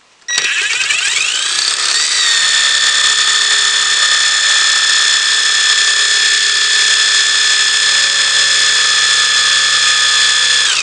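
Impact driver spinning a Lucas 15AC alternator on the bench: a loud motor whine that rises in pitch over the first two seconds as it comes up to speed, holds steady, then cuts off just before the end. At these revs the alternator is charging, reaching a bit over 13 volts.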